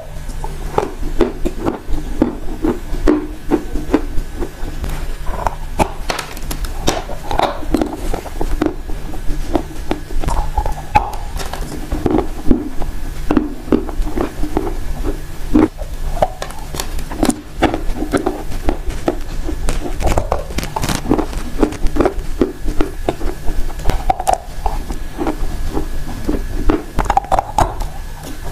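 Close-miked biting and chewing of a lump of dry yellow clay: a steady stream of crisp crunches and cracks as it breaks between the teeth.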